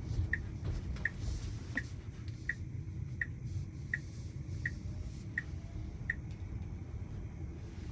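Tesla Model Y turn-signal indicator ticking evenly, about three ticks every two seconds, over the low hum of the car rolling slowly inside the cabin; the ticking stops about six seconds in.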